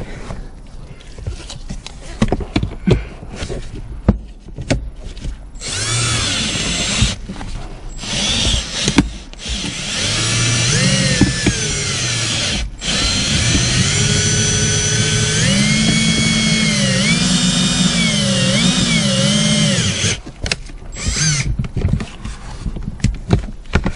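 DeWalt power drill winding a fiber-line windshield cutout tool. Its motor whines in a long run from about six seconds in to about twenty, the pitch sagging and recovering as the line drags through the urethane bead. Scattered clicks and knocks come before and after the run.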